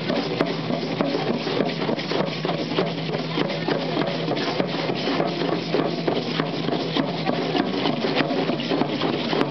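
Aztec-style dancers' rattles and percussion keeping a fast, steady rhythm.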